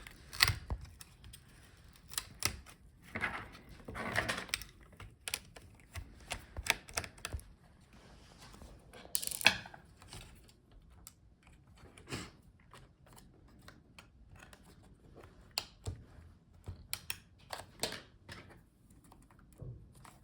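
Irregular small clicks and taps, with a few short scraping rustles: a screwdriver taking out a small screw from a laptop's heatsink assembly and the metal and plastic parts being handled.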